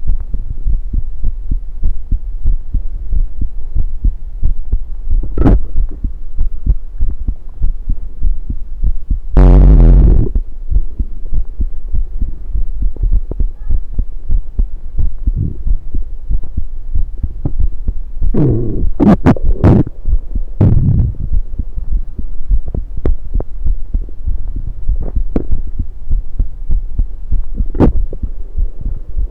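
Heartbeat picked up through an electronic stethoscope on the chest: a steady, low, rhythmic thumping. It is broken by a few louder sudden noises, the loudest about nine seconds in and a cluster around nineteen to twenty-one seconds in.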